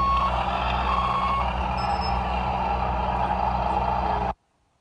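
Radio-controlled MAN truck's engine sound running with a reversing alarm beeping as it backs up. The sound cuts off abruptly shortly before the end.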